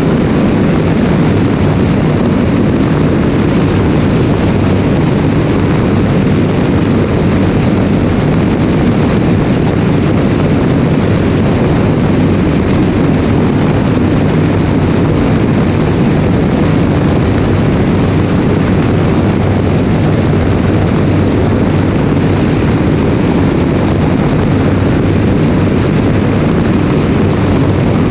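Single-engine propeller light aircraft in cruise flight, heard from a camera on its wing: a loud, steady rush of airflow mixed with the even drone of the engine and propeller, unchanging throughout.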